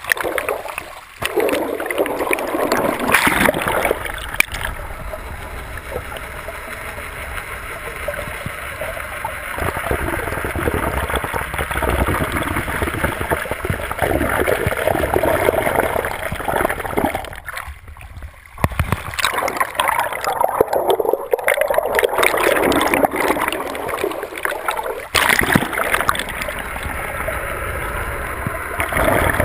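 Water rushing and gurgling over a GoPro's waterproof housing as a plana sub board is towed underwater behind a boat, with splashing at the start. The rush drops away briefly a little past halfway.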